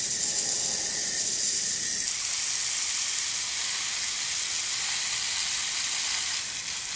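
Garden hose spray nozzle spraying water onto soil: a steady hiss that stops right at the end.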